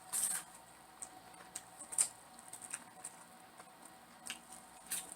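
Close-miked chewing of buttered corn on the cob: scattered wet mouth clicks and smacks, loudest just after the start and about two seconds in.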